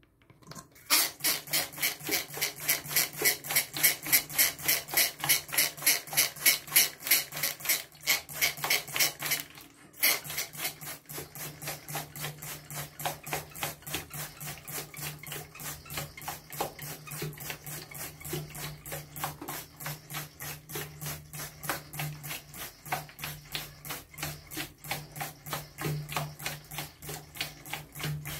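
Hand-held trigger spray bottle squirting water mist over and over, about three or four squirts a second. The squirts are louder for the first nine seconds or so, stop for a moment, then go on softer. A steady low hum runs underneath.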